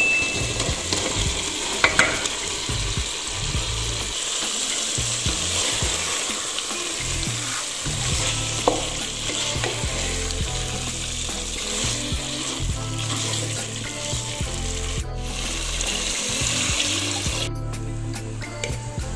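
Beef and kidney pieces in a spiced onion sauce sizzling steadily in a large stainless steel pot while a spatula stirs and scrapes through them. A couple of sharp knocks of the utensil against the pot.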